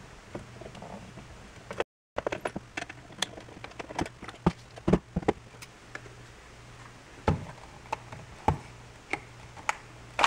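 Scattered small clicks and taps of a car's dashboard information-center unit being unscrewed and opened by hand, over a steady low hum. The sound cuts out completely for a moment about two seconds in.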